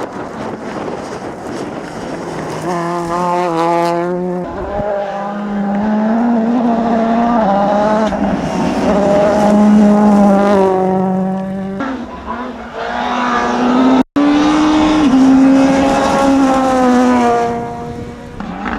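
Rally car engine revving hard and climbing through the gears, its pitch rising and dropping back at each shift. There is a sudden brief dropout about fourteen seconds in, after which an engine is again heard running at high revs.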